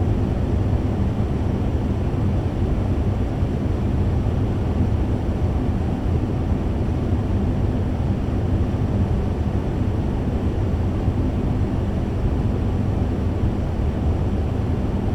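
Fan running steadily: a constant low whoosh of moving air with a faint underlying hum, unchanging throughout.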